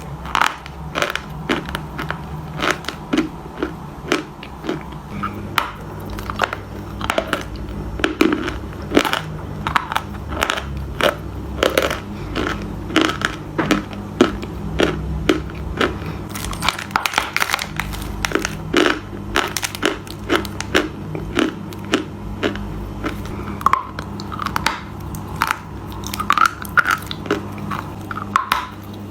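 Close-miked eating of crunchy food: repeated crisp bites and chewing crunches, several a second, with a steady low hum underneath.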